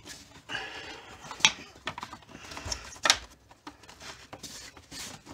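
Hard plastic air filter housing of a 2009 Ford Taurus being pushed and worked back into place by hand: rustling with a few sharp plastic clicks and knocks as the housing is seated on its alignment pins.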